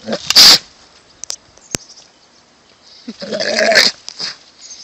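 An animal calling twice: a short, loud, harsh cry right at the start, then a longer hoarse call about three seconds in, with a sharp click between them.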